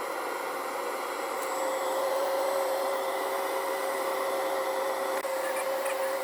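Chinese-style diesel air heater running: a steady whooshing hiss of its combustion and blower with a faint steady hum.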